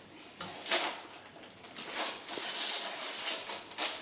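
Wrapping paper rustling and tearing as a small gift is unwrapped: a few short rips, with a longer crinkling stretch after the middle.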